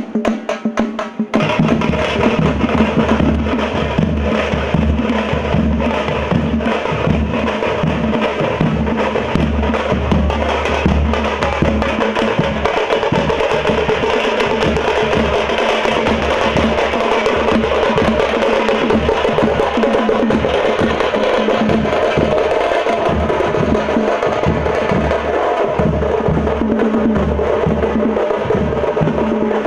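Group of parai (thappu) frame drums beaten with sticks in a fast, dense, steady processional rhythm, with a fuller, deeper layer coming in about a second in.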